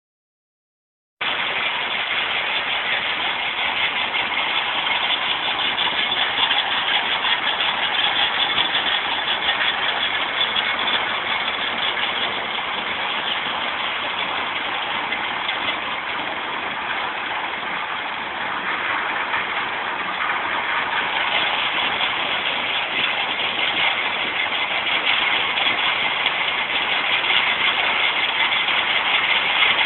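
Stone crusher machine running: a steady, dense mechanical din that starts about a second in and grows a little louder near the end.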